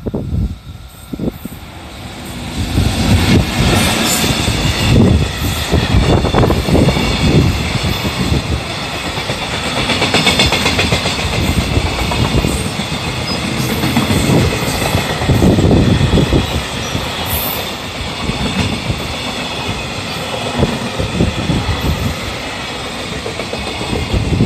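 Freight train hauled by an EF65 electric locomotive rolling past at close range, its wheels clattering over the rail joints and the crossing with a heavy rumble. It gets loud about two seconds in and stays loud.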